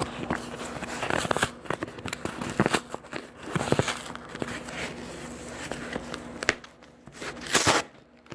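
A shipping box and its packing material being opened by hand: irregular rustling, crinkling and tearing with scattered clicks, and a louder burst of rustling near the end.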